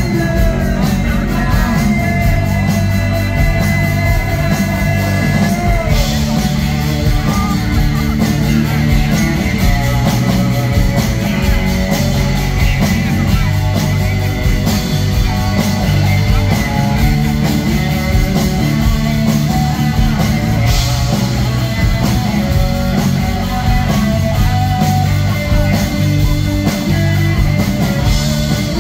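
Live rock band playing loudly through a PA, with strummed acoustic guitar, electric guitar and drums.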